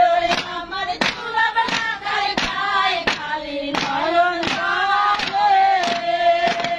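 A group singing a Bengali roof-beating work song (chhad petano gaan), with wooden beaters striking the concrete roof in a steady beat about three times a second. The song ends on a long held note near the end.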